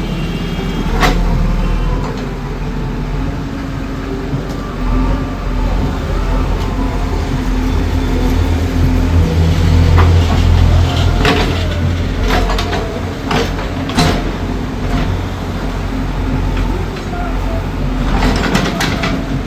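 Heavy demolition machine's diesel engine running steadily, with a few irregular sharp knocks and clanks.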